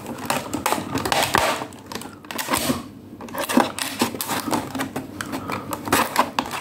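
Clear plastic blister packaging crackling and clicking in quick, irregular bursts as it is cut open with a utility knife and pulled off its cardboard backing.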